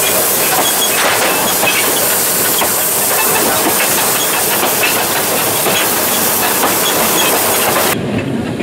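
Cab of a B25 steam locomotive running: a loud, steady steam hiss over the rumble of the moving engine, with light clicks from the wheels on the track. About eight seconds in, the hiss cuts off abruptly and the sound turns quieter.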